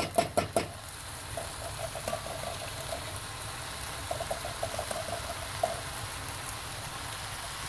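Rice and vegetables sizzling and bubbling quietly in a pot with freshly added diced tomatoes, a soft steady hiss with faint crackling. A quick run of clicks comes in the first half-second.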